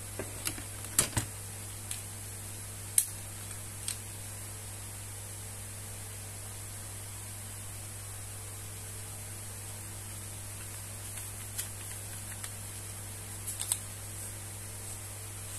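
Scattered light clicks and taps from handling a 3 m Insta360 Invisible Selfie Stick and pulling out its carbon-type telescoping sections: a few in the first four seconds, the sharpest about 1 and 3 seconds in, then a small cluster near the end. A steady hum and hiss run under them.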